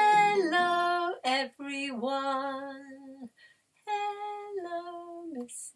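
A woman singing long held notes without clear words, each phrase stepping or sliding down in pitch, in four phrases with short breaks.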